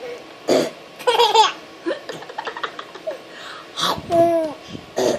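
A baby girl laughing in short bursts, with a woman's fake burps, short low rough noises made with the mouth, coming in between.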